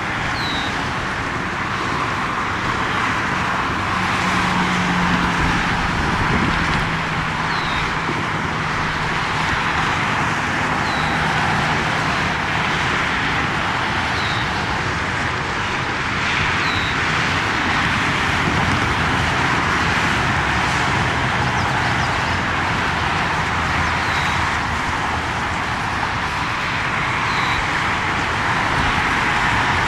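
Steady engine noise from passing vehicles, an even loud rush with a low hum that swells about four seconds in and fades out by about thirteen seconds. A short, high falling chirp repeats every three to four seconds.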